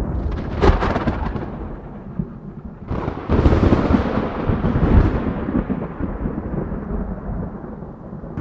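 Thunder: a sharp crack under a second in, then a louder crack about three seconds in that rolls into a long low rumble and slowly dies away.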